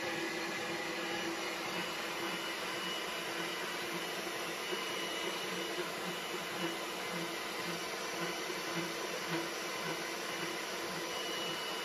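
Portable line boring machine running steadily, its electric drive turning the boring bar as it bores out a weld-built-up pivot pin hole: an even whirr with faint, regular low pulses.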